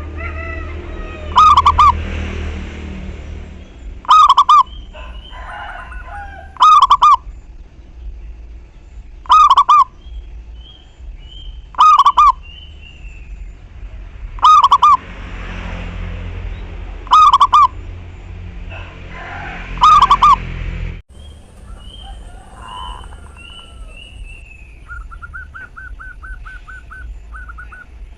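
Zebra dove (perkutut) cooing, a loud short phrase repeated about every two and a half seconds, eight times, with fainter small-bird chirps behind it. About two-thirds of the way in the loud calls stop, and near the end a quick run of about ten repeated notes follows.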